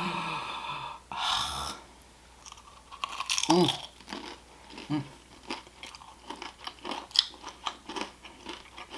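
A person chewing food up close, with many small crunches and wet mouth clicks, after two short rustling bursts at the start.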